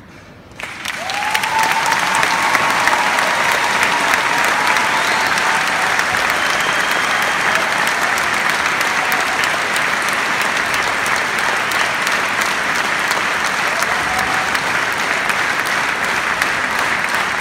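Large arena audience applauding, starting suddenly under a second in and holding steady, with a few voices calling out above the clapping.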